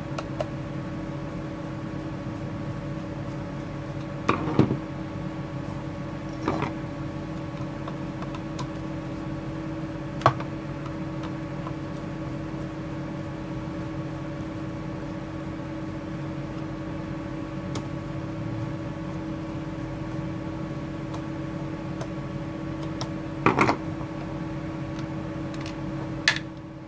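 Screwdriver working at the tight brass nut on a vacuum motor's aluminium impeller: a handful of scattered sharp clicks and knocks, about five in all, over a steady low hum.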